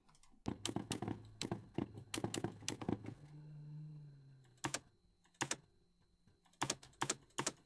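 AI-generated sound effect of old-fashioned typewriter key presses, made by Meta's Audiobox. It sounds more like a computer keyboard, really. A quick run of key clicks is followed about three seconds in by a low hum, then a few scattered single clicks.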